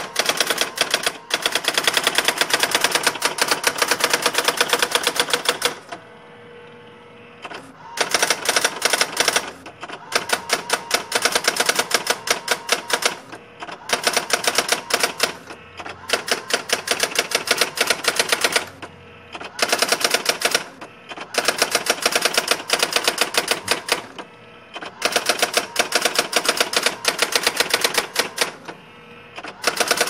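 Brother ML-100 daisy wheel electronic typewriter printing its built-in demo text: rapid runs of machine-paced daisy-wheel strikes, broken every few seconds by short pauses, the longest about six seconds in.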